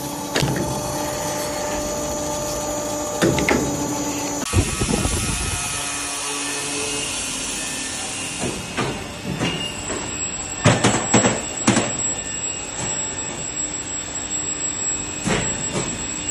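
Automatic circular cold saw cutting round steel bar, with a steady hum carrying several held tones. The sound changes abruptly about four and a half seconds in to general machine running noise, with a few sharp knocks around the middle and again near the end.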